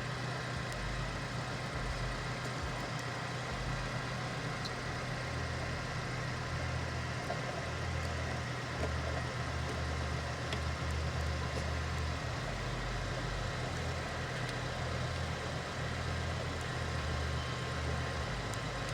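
A vehicle engine idling steadily: a constant low hum with an uneven rumble underneath.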